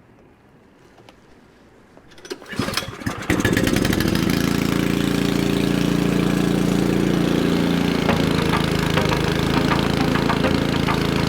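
Snowblower engine starting: about two seconds in it cranks and sputters briefly, catches about a second later and settles into a steady run.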